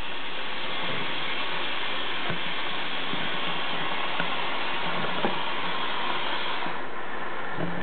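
Water running steadily from a bathroom sink faucet into the basin, with a few faint knocks and splashes. The upper hiss of the rush thins a little about seven seconds in.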